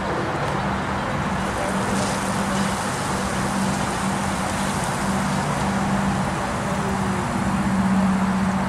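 A TTC CLRV streetcar approaching out of a tunnel, its low motor hum coming and going in short spells and growing louder near the end, over a steady hiss of road traffic.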